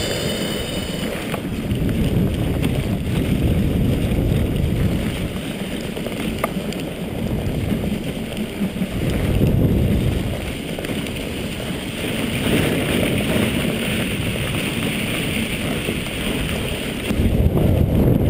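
Dog sled gliding at speed over a packed snow trail: a steady rush of runners on snow mixed with wind buffeting the microphone, getting louder near the end.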